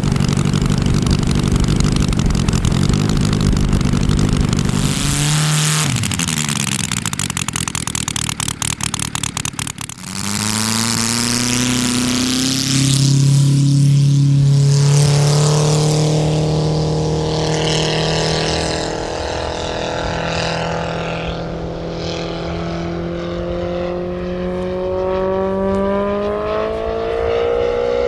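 Kolm four-cylinder inline 310 cc four-stroke model aircraft engine driving its propeller. It runs hard at first, then drops to a rough, stuttering idle about five seconds in. About ten seconds in it opens up to full throttle for the takeoff run and holds a steady drone whose pitch slowly rises near the end.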